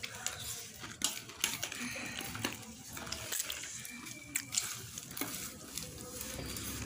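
A metal spoon scraping and clicking against a ceramic plate as dry beaten rice and meat are scooped up, in scattered sharp clinks over a light crackly rustle.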